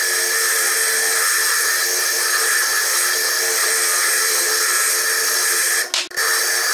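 Foredom bench lathe spinning a core drill that grinds a hand-held stone into a sphere: a steady high whine over a grinding hiss. The sound breaks off for a moment near the end.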